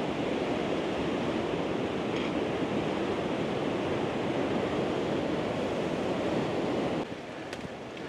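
Rain-swollen river water rushing and gushing down a rocky gorge beneath the bridge: a steady, loud rush of water that drops suddenly in level about seven seconds in.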